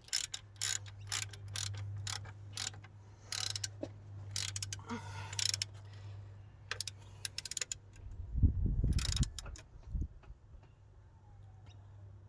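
Ratchet wrench clicking in short strokes as an alternator mounting bolt is tightened, with a few heavier knocks about eight to ten seconds in.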